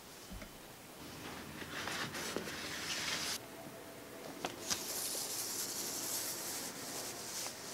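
Paper rustling as a vinyl LP is slid out of its white paper inner sleeve: two stretches of dry, hissing scraping, the second longer and starting just before halfway, with a few light clicks of handling.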